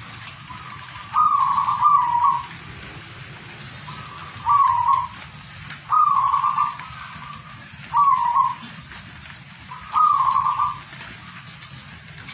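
Zebra dove cooing: five short phrases, each a quick run of notes, a couple of seconds apart, over a steady faint hiss.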